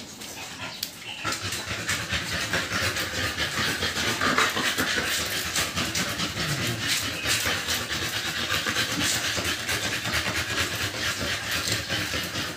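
Two-month-old American bully puppies panting and snuffling, with many quick clicks and scratches of claws on a plastic slatted floor as they shift about.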